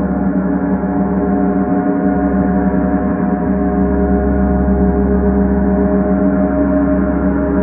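Paiste symphonic gong ringing in a loud, steady, sustained wash of many overlapping tones, kept going without separate audible strikes.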